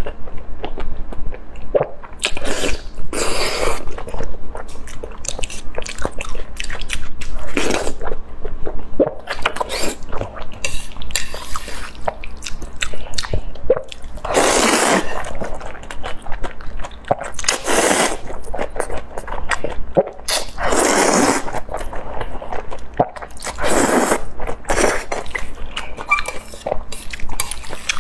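Close-miked eating: wet chewing and lip smacks on braised meat, then a loud slurp of spicy noodles about halfway through, followed by several more slurps and chewing, one every few seconds.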